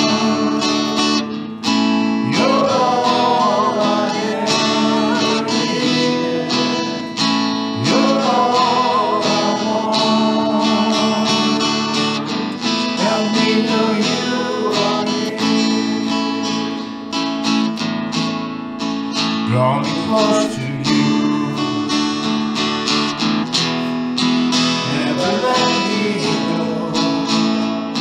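Worship song played live: an acoustic guitar strummed steadily with a voice singing the melody over it.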